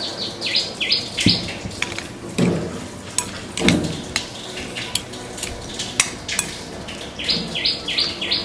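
Kitchen utensils clinking, knocking and scraping against a bowl or dish with scattered sharp clicks, as fruit salad is prepared and mixed. A bird gives short repeated high calls near the start and again near the end.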